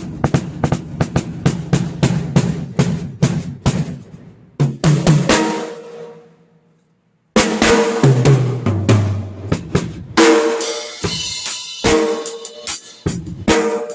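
Acoustic drum kit played as a sound check: a quick run of drum strokes at about four to five a second, then a ringing hit that dies away. After a short pause comes a fill that steps down in pitch across the toms, followed by more hits with ringing cymbals.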